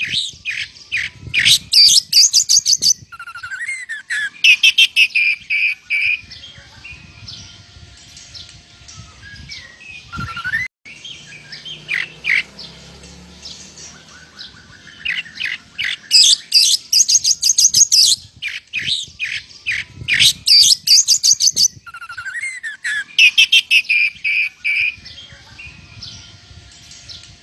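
Oriental magpie-robin (kacer) singing hard, its song filled with imitated lovebird calls. Fast trains of sharp, high chips alternate with rising whistles and quieter warbling phrases.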